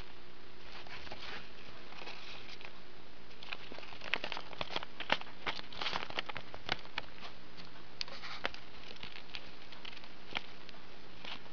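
A small pet rodent scurrying over newspaper and tissue paper: light paper crinkling and quick ticking patters, busiest around the middle.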